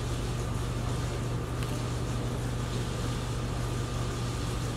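A steady low hum with a faint high tone above it, unchanging throughout: the running drone of a machine in the room.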